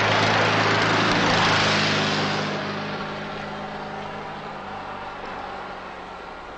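Car engine running as a car speeds past, with a loud rush of noise at first that fades steadily as it moves away.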